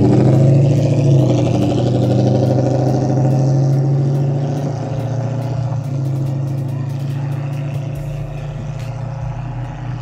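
Lexus 3UZ-FE V8 with a straight-piped exhaust, in a V8-swapped Mercedes C230 coupe, pulling away. The revs climb at the start and then hold a steady exhaust note that slowly fades as the car drives off.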